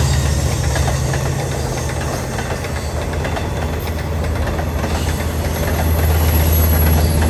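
Long Island Rail Road diesel push-pull train of bilevel passenger coaches passing close by: wheel and rail noise over a steady low engine drone. The sound eases a little in the middle and swells again near the end.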